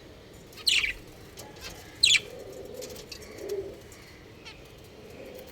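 Budgerigars calling: two sharp, downward-sliding chirps about a second and a half apart, with a soft low warble in between.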